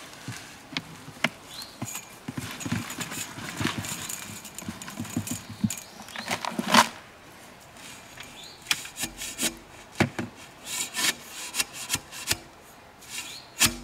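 Wet concrete mix being dumped from a plastic bucket into a post hole: scraping and sliding of the mix against the bucket, with knocks and thuds, the loudest about two-thirds of the way in.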